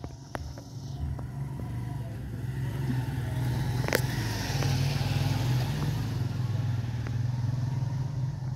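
A motor vehicle's engine running nearby, getting louder from about two seconds in, with a single sharp click about four seconds in.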